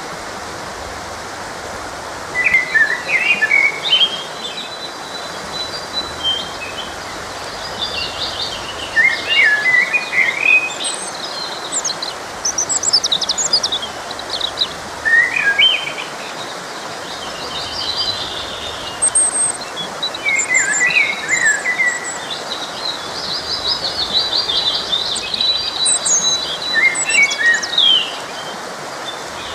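Songbirds singing in short, chirpy phrases every few seconds over the steady rush of a stream.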